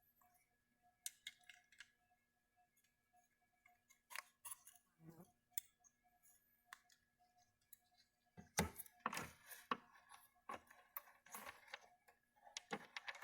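Faint scattered clicks and taps of a soldering iron, solder and small parts being handled on a circuit board, busier in the last few seconds, over a faint steady hum.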